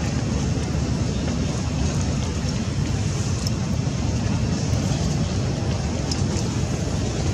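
Steady low rumbling background noise with a fainter hiss above it and no distinct events.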